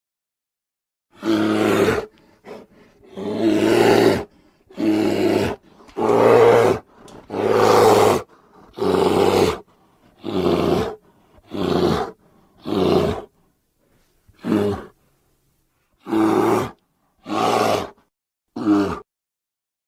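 A series of about fourteen short, deep animal roars, each under a second long and about a second apart, cut one after another with silence between them.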